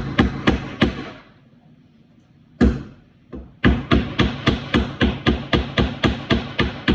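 Hammer driving nails into the wooden panels of a birdhouse kit with quick, even strikes, about three a second. A short run of strikes comes first, then a pause broken by a single strike, then a longer steady run.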